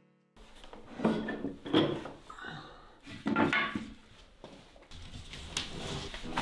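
Wooden boards and a plastic tool case being handled and moved about on a chipboard floor: a series of irregular hollow knocks and scrapes, the loudest about one and two seconds in.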